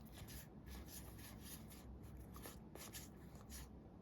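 Faint, repeated soft swishes of Weiss Schwarz trading cards being slid one past another by hand, about three or four a second.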